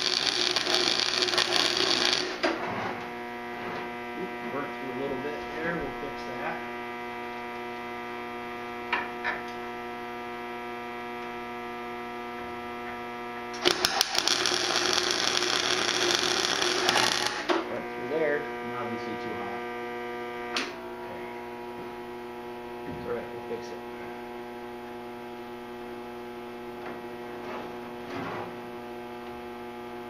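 Wire-feed welder arc crackling in two bursts: about two seconds at the start and about three and a half seconds in the middle. A steady electrical hum sounds between the welds.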